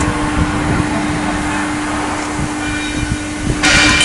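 Sunrise IW hydraulic ironworker (combination punch and shear) running, its motor and pump giving a steady hum with one constant tone. Near the end comes a short, loud hiss-like burst.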